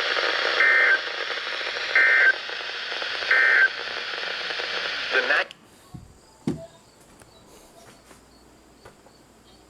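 Radio receiver hiss carrying the three short Emergency Alert System end-of-message data bursts, about a second and a half apart, which mark the close of the weather warning. The transmission cuts off about five and a half seconds in, leaving quiet room sound with a soft thump and a few faint ticks.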